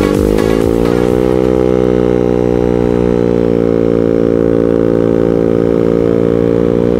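TNT Motor Roma 50cc four-stroke single-cylinder scooter engine with an aftermarket LeoVince exhaust, picking up revs in the first second and then holding a steady cruising speed.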